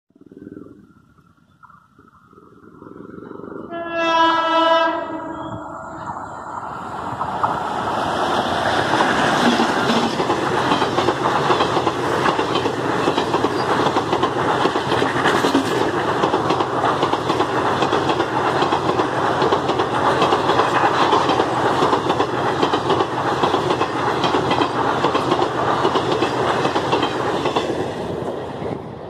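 Indian Railways WCAM 3 electric locomotive hauling an express approaching and sounding one horn blast about four seconds in. A long rake of passenger coaches then rushes past at speed, wheels clattering over the rail joints, the noise easing off near the end as the last coach goes by.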